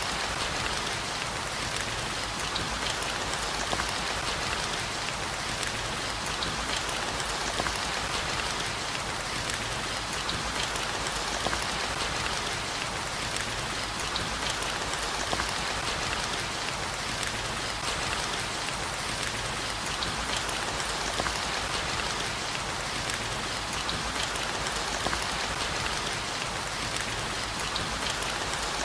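Steady, even rain, with many small drop ticks.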